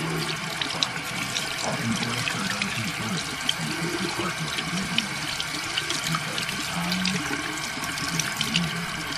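Sink faucet running steadily into a white basin, the stream splashing over small hands as they are rinsed under it.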